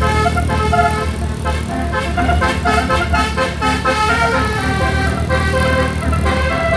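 Telolet horn playing a tune of pitched notes that step from one to the next, quicker in the middle, over a steady low engine rumble.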